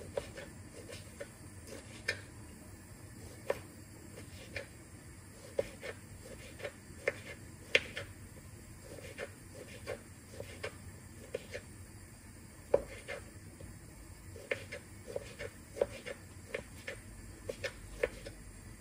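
Kitchen knife slicing cherry tomatoes on a wooden cutting board: short, sharp knocks of the blade striking the board, at an uneven pace of one or two a second.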